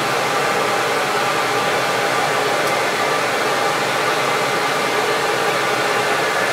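CamVac CGV336-4 dust extractor running on both motors, a steady rush of air drawn through its 2.5-inch posable hose, with a faint steady motor whine.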